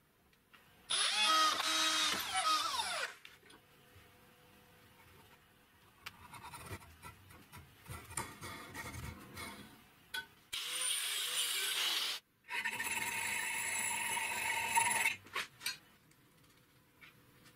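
Power drill boring a hole through a steel angle bracket held in a vise, running for about two seconds with its pitch falling as it slows. A quieter stretch of scraping and clicking follows as a hand tap cuts threads in the hole, then a power tool runs again, briefly and then for a few seconds more.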